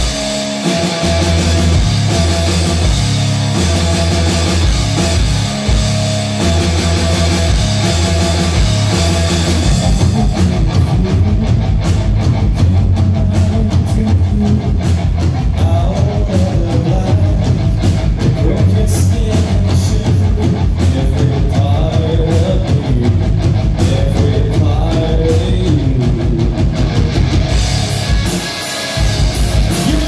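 A rock band playing live: electric guitars over a drum kit, a driving riff with a heavy low end. About a third of the way in the section changes and a bending melodic lead line comes in over the riff, with a brief drop in level near the end.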